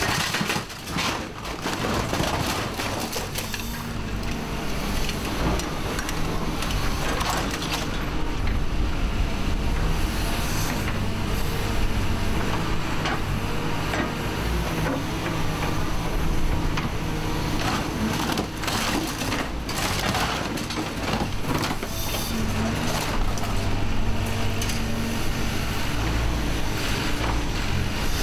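Hyundai HX180 excavator running steadily under load. Irregular metal crunching and scraping sound as its grab tears parts out of a car body held in the VRS clamp.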